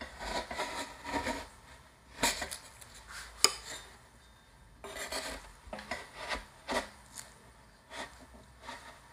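Metal spatula scraping frozen ice cream across the steel cold plate of an ice cream roll machine, pushing it up into a roll, in a series of short rasping scrapes. There is a sharp click about three and a half seconds in.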